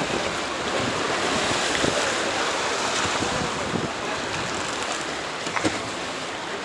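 Choppy sea waves slapping and splashing against a stone harbour quay, with wind blowing over the microphone.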